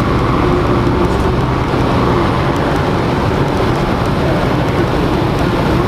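A B-25 Mitchell's two Wright R-2600 14-cylinder radial engines running in a steady drone, mixed with rushing wind, as the bomber comes in to land.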